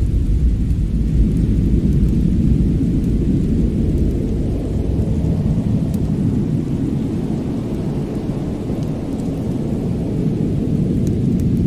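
Steady low rumbling noise of a snowstorm-and-fireplace ambience track, easing slightly in the middle, with a few faint crackles.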